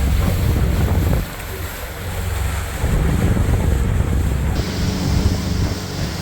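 Wind buffeting the microphone over the steady running of a boat motor. The rumble drops away for a second or so about a second in, then comes back.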